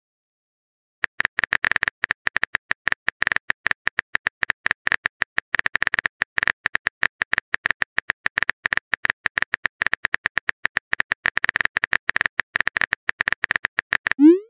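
Typing sound effect: fast, irregular key clicks that keep going for about thirteen seconds while a message is being written. It ends with a short rising pop as the message appears.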